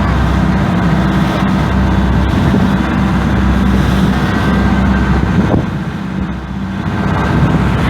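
A boat's engine running steadily with a low, even hum; it eases briefly about two thirds of the way through, then picks up again.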